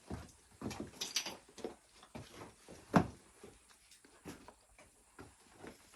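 Shoes scuffing and knocking on rock as people scramble over boulders, with one loud thump about three seconds in.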